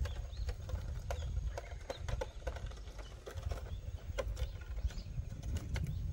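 Irregular light clicks and knocks over a steady low rumble of wind on the microphone.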